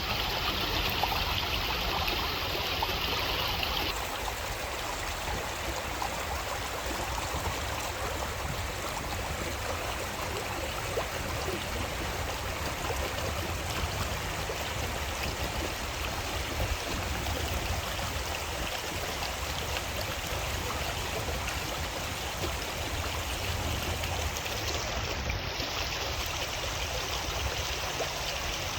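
Creek water running steadily over a shallow bed, a continuous rushing and gurgling; the higher part of the rush drops a little about four seconds in.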